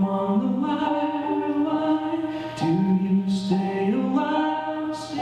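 Music: a slow melody of long held notes stepping up and down between pitches over a steady low drone.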